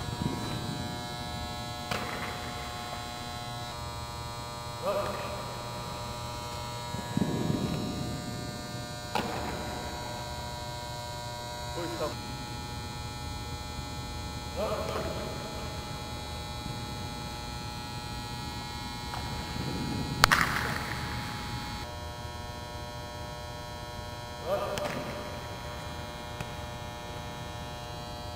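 A steady electrical hum with several high, steady tones, broken every few seconds by a short thud or knock; the loudest, a sharp crack, comes about twenty seconds in.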